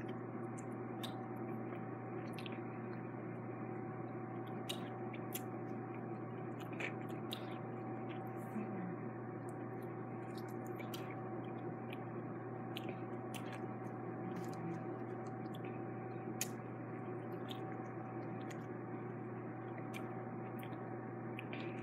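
Someone sucking and chewing on a lemon: small, scattered wet mouth clicks over a steady background hum.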